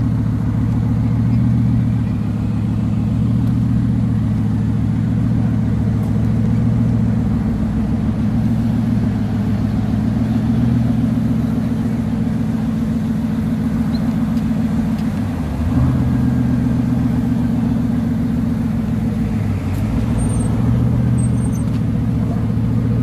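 Bugatti Veyron 16.4's quad-turbo W16 engine running at low speed while the car creeps along. The note is steady, with a brief dip and pick-up a little past the middle and again near the end.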